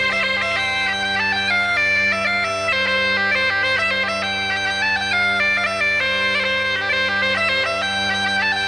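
Bagpipe tune played over a steady low drone, the melody moving in quick stepwise notes.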